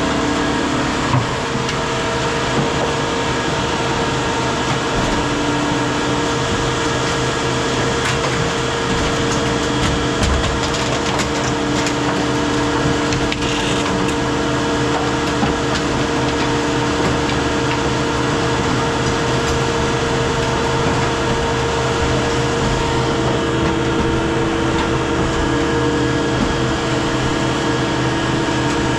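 Heavy equipment running steadily, a constant engine drone with a held whine and a few small knocks.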